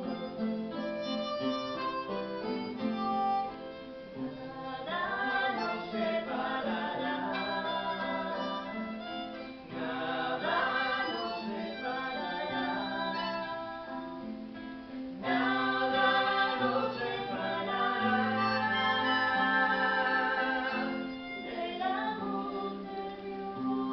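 Music: melodic song with guitar accompaniment and what may be singing, the texture thickening and fading in phrases.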